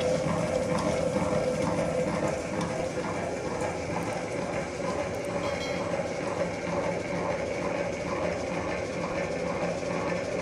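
Electric stand mixer running, its motor and gearing humming steadily with a rhythmic pulse about three times a second as the beater turns through the cake mixture in the steel bowl.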